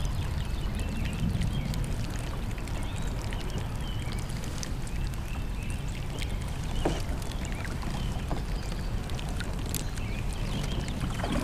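Water sloshing around a small fishing boat on a lake, with faint bird calls and a few light knocks.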